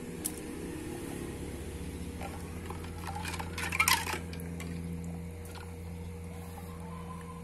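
Water splashing and sloshing in a bucket for about a second, a little past halfway through, with a few sharp splashes, over a steady low hum.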